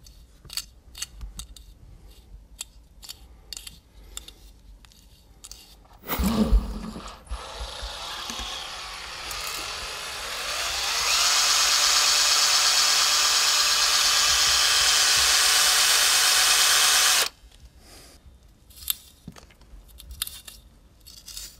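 Bosch cordless drill spinning a large fly held in its chuck: it speeds up with a rising whine, runs steadily at full speed for about six seconds, then stops suddenly. Before and after it come light scratching clicks of a comb working through the synthetic fibres, with a knock about six seconds in.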